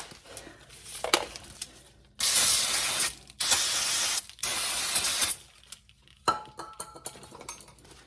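Aerosol brake cleaner sprayed in three hissing bursts of about a second each, followed by a short metallic clink.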